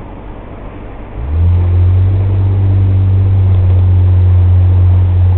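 Road noise inside a moving car, with a loud, steady low drone that starts suddenly about a second in and cuts off suddenly at the very end.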